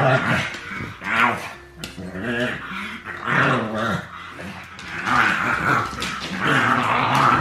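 Two small flat-faced dogs play-fighting, growling at each other in short repeated bouts, about one a second.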